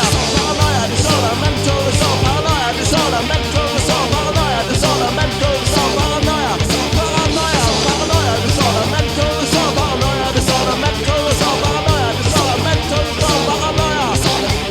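Punk-rock crossover music played loud by a full band, with drums keeping a steady beat and a lead line that bends up and down in pitch over it.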